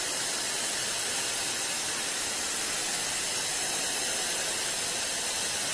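TV static sound effect: a steady white-noise hiss at an even level.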